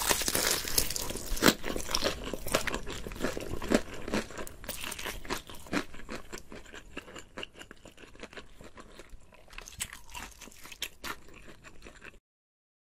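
Someone bites into a crisp, breadcrumb-coated fried potato-and-chicken ball and chews it, crunching loudly. The crunches come thick and loud at first, then grow sparser and quieter before stopping abruptly.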